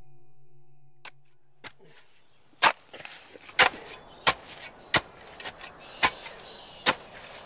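A steel spade chopping into wet clay mud: six sharp strikes, starting about two and a half seconds in, roughly one a second. The last of a soft ambient music tone fades out before the first strike.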